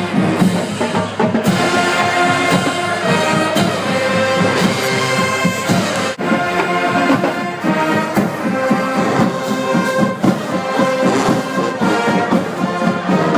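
Loud music with many instruments playing together, running steadily throughout.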